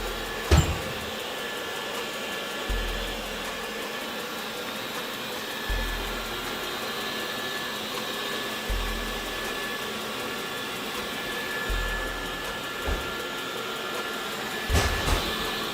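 Dreame Bot L10 Pro robot vacuum running with a steady whir and whine. A sharp knock comes about half a second in, and a few more knocks come near the end.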